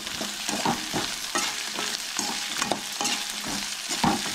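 Onions frying in hot oil, sizzling steadily while being stirred, with frequent irregular scrapes of the utensil against the pan.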